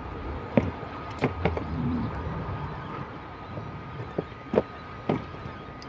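Scattered light clicks and taps, about seven in all, from small plastic and metal parts and tools being handled on a workbench, over a faint steady high hum.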